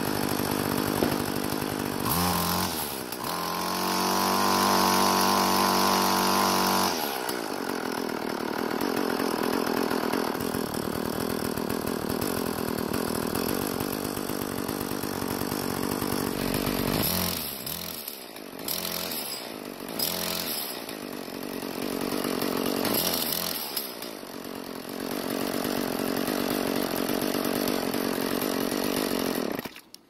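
Craftsman string trimmer's small two-stroke engine running on its own after a fuel-line repair. It idles, revs up to a high steady speed for several seconds about two seconds in and drops back to idle, then gives a few shorter throttle blips later on. It is running smoothly and holding its idle.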